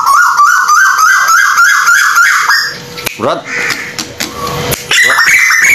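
A bird calling in a quick run of short rising notes, about three a second, then after a pause of roughly two seconds a second run that begins a little higher.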